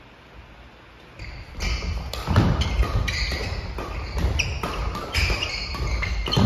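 Badminton doubles rally on a wooden gym floor, starting about a second in: sharp racket hits on the shuttlecock mixed with shoe squeaks and heavy footfalls.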